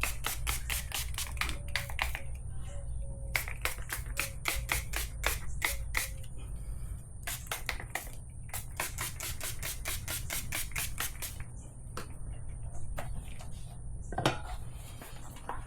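Rapid, even clicking in runs of a few seconds with short pauses between, over a steady low hum.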